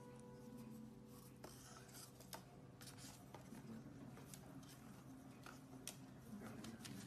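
Faint, scattered light taps and scrapes as a parrot handles a cardboard toilet-paper tube on a stone countertop, over a low steady hum of room tone.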